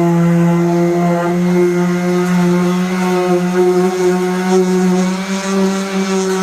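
Power sander running steadily against the car's body paint with a constant motor hum. The pitch dips and the level wavers slightly from about five seconds in, as the load on the pad changes.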